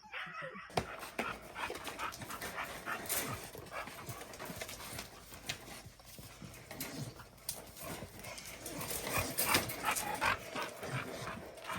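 American pit bull terrier panting and moving about close by, with scattered scuffs and clicks of handling throughout.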